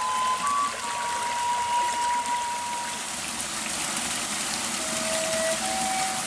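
Waterfall rushing steadily, with slow background music of long held, flute-like notes over it.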